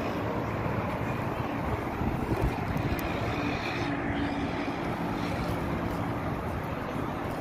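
Steady outdoor background noise with a low rumble and faint voices of people walking by.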